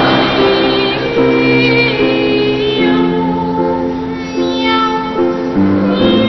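Boys' voices singing a slow melody with grand piano accompaniment.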